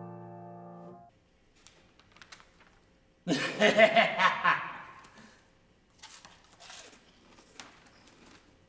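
A piano chord rings on and cuts off about a second in. A man then lets out one long wordless vocal sound that starts suddenly and fades over about two seconds, followed by faint rustling of newspaper pages.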